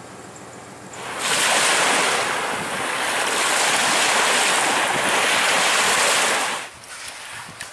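Small waves breaking and washing up on a sandy lake beach: a steady rush of surf that swells and eases, starting about a second in and cutting off shortly before the end.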